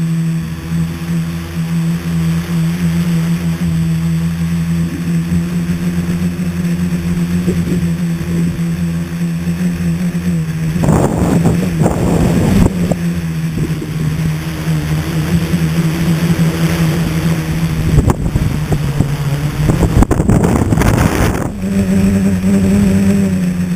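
Motors and propellers of a scratch-built tricopter humming steadily in flight, recorded from the onboard camera. Loud rushing wind noise on the microphone comes in about halfway and again near the end, and the motor pitch rises slightly just before the end.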